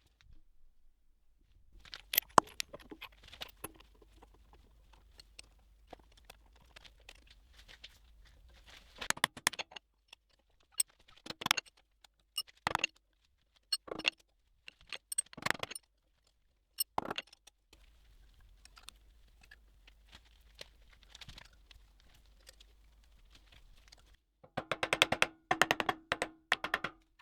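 Metal clamps and tools clinking and knocking as a steel plate is clamped on a machine table: scattered sharp clicks, with a quick rattling clatter near the end.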